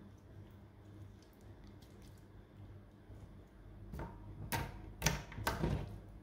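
Homemade sugar-and-hand-soap slime being pressed and squeezed by hand: faint handling at first, then four squelching crackles about half a second apart near the end.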